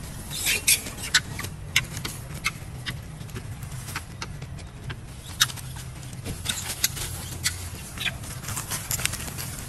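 Dry leaves and twigs crackling and snapping irregularly as something moves through leaf litter and undergrowth, over a steady low rumble.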